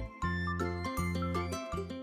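Cheerful children's background music: a bouncy tune with bass notes changing about every half second and bright jingling notes on top.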